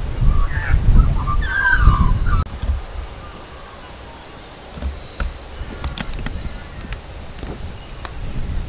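Australian magpie warbling calls over heavy wind rumble on the microphone, which stops suddenly about two and a half seconds in. After that, sparse sharp snaps and crackles from a small wood fire in a folding fire pit.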